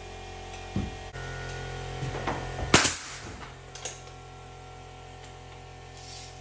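One loud, sharp bang about three seconds in, with a few lighter knocks before and after it, over a steady low hum.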